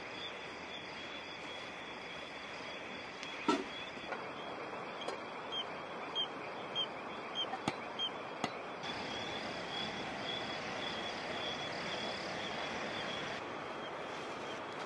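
Night bush ambience: a steady, high-pitched insect trill over a soft hiss, with a dozen or so sharp clicks and pops between about three and nine seconds in.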